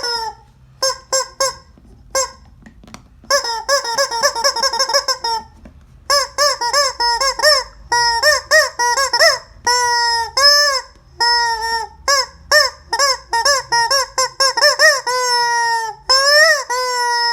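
Rubber squeeze-toy chicken squeezed over and over, giving a string of short honking squawks, some in quick runs and a few drawn out with the pitch bending up and back down.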